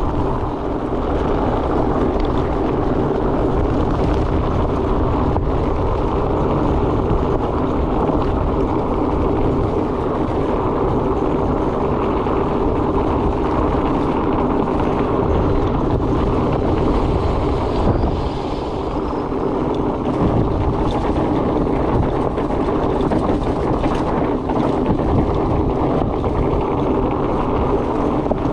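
Fat bike rolling on a dirt trail: a steady drone from the wide tyres, with wind noise on the microphone.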